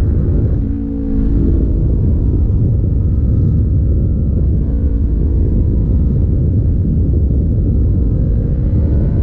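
Wind noise rushing over the microphone of a sport motorcycle at around 50 to 60 mph, with the bike's engine running steadily beneath it. About a second in, the wind briefly eases and the engine's note comes through clearly.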